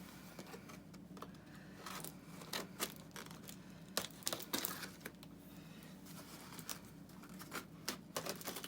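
Cardboard shipping box being opened by hand: irregular clicks, scrapes and short tearing and rustling sounds of cardboard flaps and packaging.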